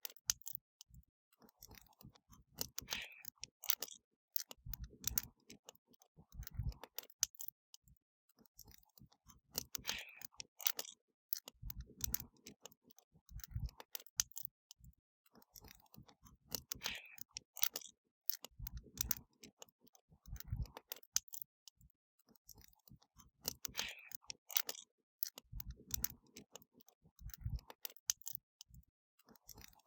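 Wood fire crackling: a steady scatter of sharp pops and snaps at an irregular rate, with heavier low thuds coming in short clusters every several seconds.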